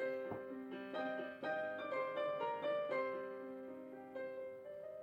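Background piano music: a gentle melody of single notes over sustained chords, getting softer toward the end.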